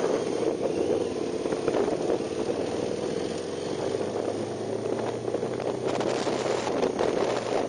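KTM 990 Super Duke's 999 cc V-twin engine running steadily under throttle on a race track, with wind noise on the microphone.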